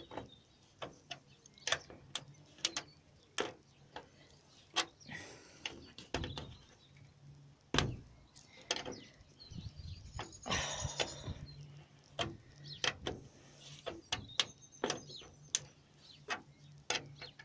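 Bolts and washers being screwed in by hand on a cold-frame hinge: irregular small metal clicks and knocks, with two longer scraping noises about five and ten seconds in.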